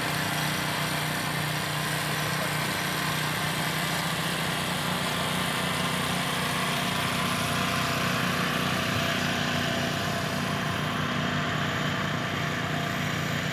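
Boat engine running steadily at low, even revs, with a constant low drone.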